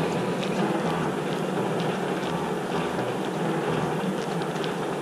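Steady outdoor ambience at the sea wall at night: a dense rushing hiss with a low rumble that swells and fades every second or so, and a few faint ticks.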